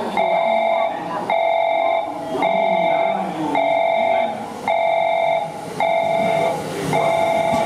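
Station platform warning tone sounding in repeated notes of just under a second each, about one a second, as a JR Central 313 series electric train pulls into the platform.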